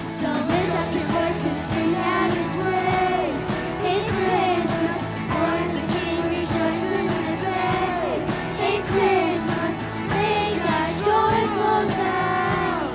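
Christmas worship song: singing over a band accompaniment.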